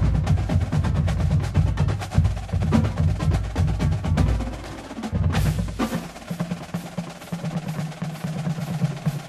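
Marching drumline playing a fast cadence: rapid snare and stick strokes over bass drums. About five seconds in comes one loud accented hit, after which the bass drums drop out and the lighter strokes carry on.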